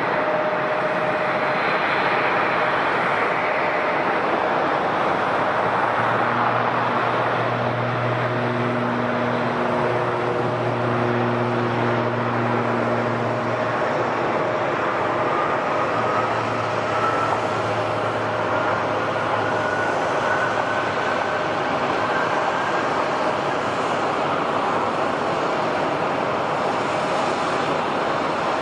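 Airliner engines running: a steady rush with a whine that rises slowly in pitch through the middle, and a low hum that comes in about a quarter of the way through and fades before the end.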